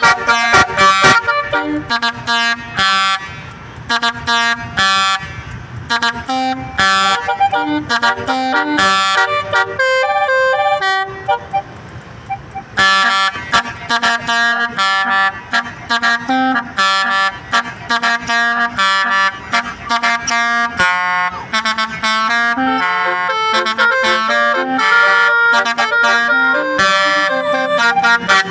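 A bus's Basuri musical horn playing a tune: a loud, unbroken melody of short stepped horn notes. Around ten seconds in it switches briefly to rapid repeated notes and dips in level before the tune picks up again.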